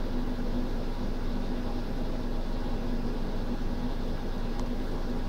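Steady low hum with a faint even hiss and one held low tone: the background drone of a running appliance such as an air conditioner or fan.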